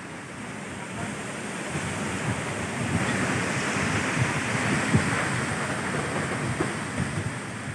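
Strong wind buffeting the microphone over the rush of surf, swelling from about a second in to a peak midway and easing near the end.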